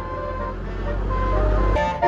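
Bus telolet (Basuri) horn sounding a few held notes over the heavy low rumble of a bus engine. The rumble swells and then cuts off suddenly near the end.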